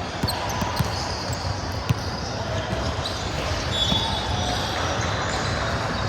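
A few sharp thumps of a ball striking a hard court in a large hall, over a steady murmur of indistinct voices.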